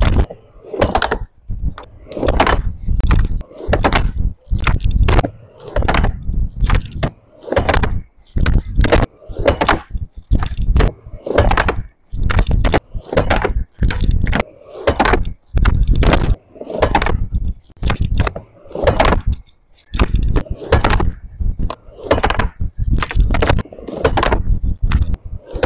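Skateboard on a wooden backyard quarter pipe: wheels rolling on the plywood, and the board clacking against the ramp's coping and slapping down on the surface during blunt kickflip attempts, in short chopped-up bursts that start and stop abruptly.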